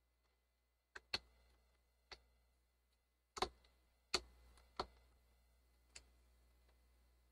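Sharp, irregular clicks and taps of a Phillips screwdriver and small screws on the plastic bottom case of an IBM ThinkPad R52 laptop as its screws are put back in. There are about seven clicks, the loudest around the middle.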